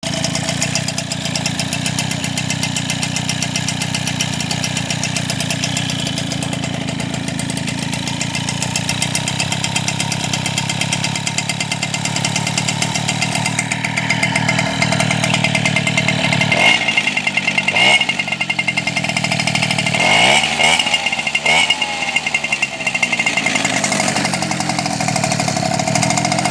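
Freshly rebuilt Peugeot car engine idling steadily, then revved several times about two-thirds of the way through, its pitch rising and falling with each rev before it settles back to idle.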